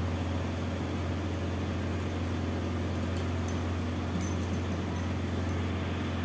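Steady low hum under an even background hiss, with a few faint light ticks.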